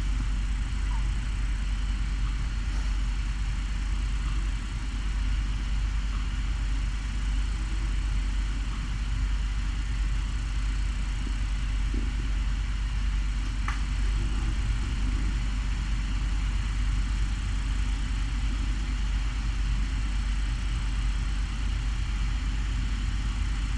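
Steady low hum with an even hiss, an unchanging mechanical or electrical drone, with one faint click about 14 seconds in.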